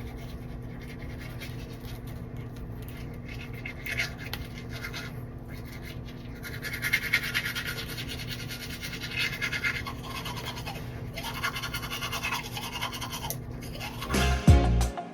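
Handheld hair dryer running with a steady motor hum and airflow hiss, the hiss getting louder for a few seconds in the middle. The hum stops near the end as music starts.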